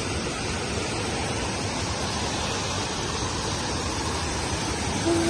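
Steady rush of water from a stream tumbling over a small stone weir, with water from a spout splashing into a bucket.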